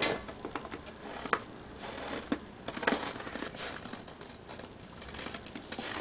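Scattered crunches and rustles of feet and handling in dry, cold snow, then a loud whoosh right at the end as boiling water is flung from a pot into air below −10 °C and flashes into a snow cloud.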